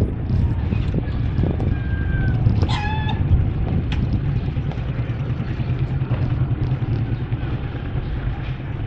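Steady low rumble of a vehicle travelling along a street. About two to three seconds in there is a brief high-pitched call or tone.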